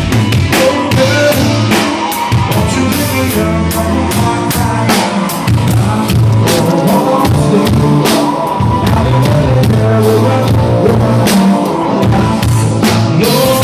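Live band playing a rock song with the drum kit to the fore: steady kick, snare and cymbal hits over bass and other pitched instruments, without singing.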